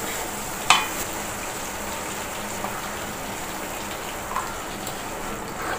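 Melted jaggery syrup pouring into a hot uruli of sautéed pineapple, a steady gushing hiss as the liquid meets the hot pan. A single sharp click a little under a second in.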